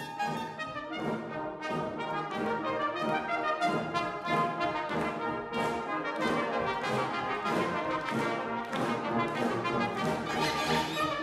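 Brass band playing a hornpipe: cornets, horns and trombones together in quick, short notes over a steady beat.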